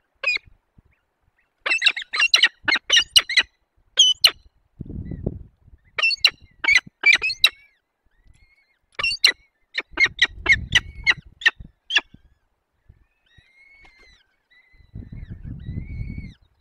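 Peregrine falcons calling at the nest during a prey delivery: several clusters of sharp, rapid, harsh calls. Faint thin peeping, typical of the downy chicks begging, follows near the end, with a few low rumbles.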